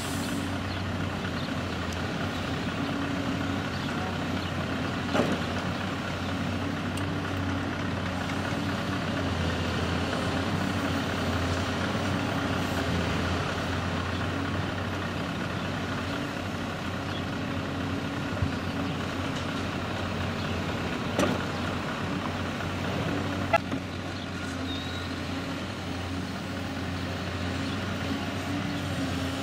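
Diesel engines of a Volvo EW160D wheeled excavator and a Scania R560 truck running steadily while the excavator digs dirt and dumps it into the truck, with a few sharp knocks from the bucket and the load.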